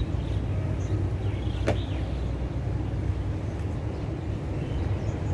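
Steady low rumble of city background noise outdoors, with one sharp click a little under two seconds in.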